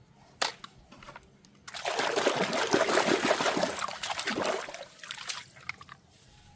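Water pouring and splattering for about three and a half seconds, starting a little under two seconds in, after a single sharp tap.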